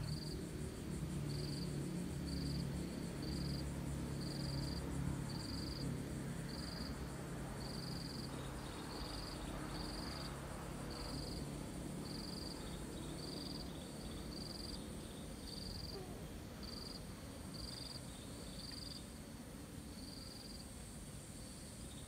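An insect, cricket-like, chirping in short high-pitched pulses about once a second. A low steady hum underneath fades out by about halfway through.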